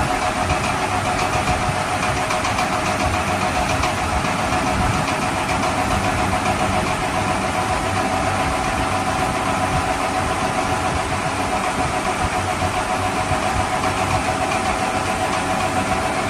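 A motor or engine running steadily, with a constant whine over a rough, even hum.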